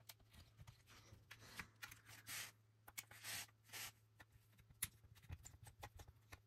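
Faint clicks and a few short scrapes of a small precision screwdriver working tiny screws out of a plastic HO scale locomotive shell, with fingers handling the model.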